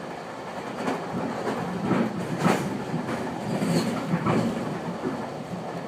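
Ride noise inside a moving GO Transit commuter train car: a steady rumble of steel wheels on the rails, with a few sharp, irregular clacks from the track in the middle.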